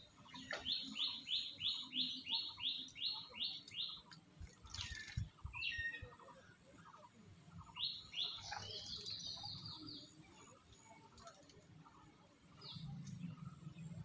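A bird singing a rapid run of repeated high, downward-sliding notes, about three a second, twice over with a pause of a few seconds between. A few sharp clicks come in between the two runs.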